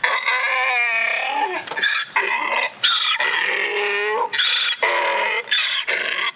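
Donkey braying: a run of hee-haw calls, short high-pitched notes alternating with longer, lower notes that slide down in pitch.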